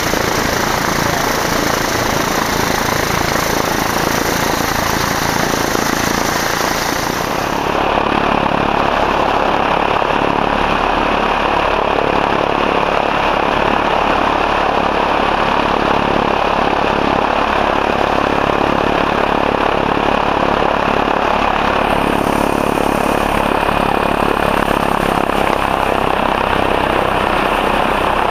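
Piston propeller warbird engines running loud and steady, as vintage military trainers and liaison planes taxi. The hiss in the upper range drops away abruptly about seven seconds in.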